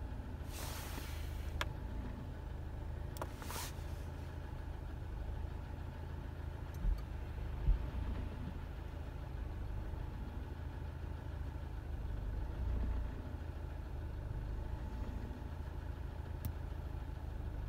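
An engine running steadily at idle, a low rumble throughout, with two short hissing rushes near the start and a few light clicks.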